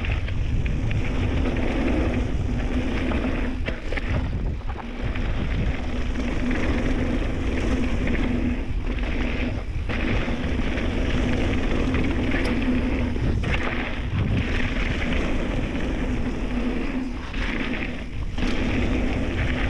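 Mountain bike running fast down a dry dirt trail: the tyres rumble over the hardpack and wind buffets the chest-mounted microphone, with the rumble dropping away briefly a few times.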